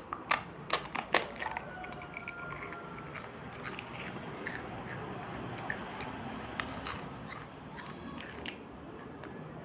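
A crisp pani puri shell bitten and crunched, with a few sharp cracks in the first second and a half, then steady close-up chewing.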